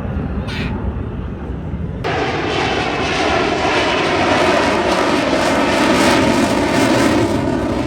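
Airplane engine noise from a display aircraft in flight. A low rumble gives way abruptly, about two seconds in, to a loud, wide roar that builds to a peak near the end.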